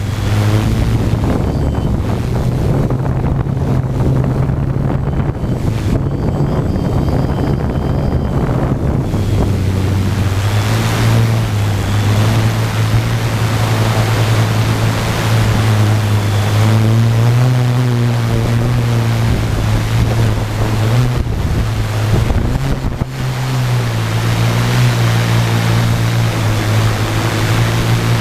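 Tarot 650 quadcopter's motors and propellers humming steadily, the pitch wavering up and down as the motors speed up and slow down to hold the craft against strong gusty wind, with heavy wind rumble on the onboard GoPro's microphone.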